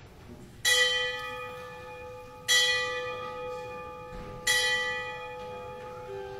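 A church bell struck three times, about two seconds apart, each stroke ringing on the same pitch and fading slowly.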